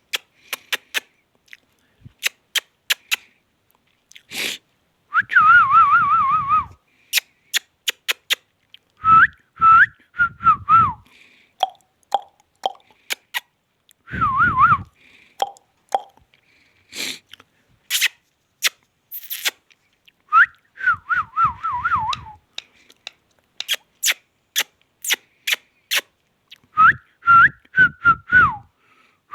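Indian ringneck parakeet whistling: several short warbling phrases that wobble quickly in pitch, with many sharp clicks between them.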